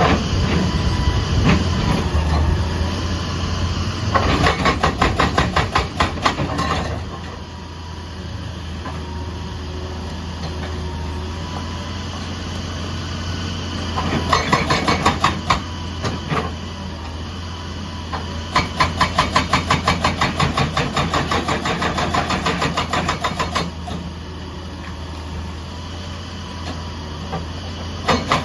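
Excavator's diesel engine running steadily, with repeated bursts of rapid hammer blows, about four or five a second, from a hydraulic breaker working with pauses between bursts.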